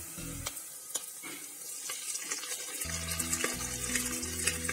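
Chopped shallots sizzling as they fry in coconut oil in a pan, with a few light clicks while moringa leaves are tipped in on top.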